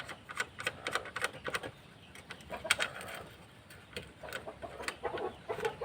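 Light clicks and taps of metal parts being handled while a snail horn is fitted to a motorcycle, with birds calling in the background.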